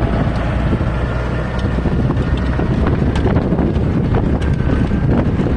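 Massey Ferguson tractor engine running steadily in the field, with strong wind buffeting the microphone.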